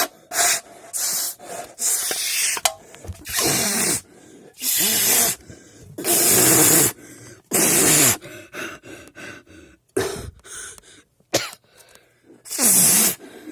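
A person blowing hard into the mouth of an empty Monster energy drink can, a series of about nine rough, hissing blasts of breath, each half a second to a second long, trying to imitate an engine.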